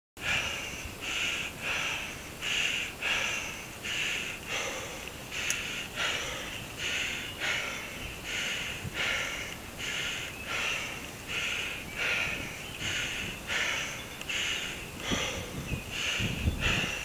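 A cyclist's heavy, labouring breathing while climbing a hill, hard rhythmic panting at about two breaths a second. It is the sound of a rider overheated and struggling up the slope. A few low knocks come near the end.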